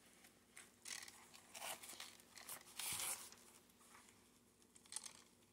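Faint rustling and scraping of a Myomo arm brace, its straps and plastic shell being handled and pulled into place, in several short bursts, the loudest about three seconds in.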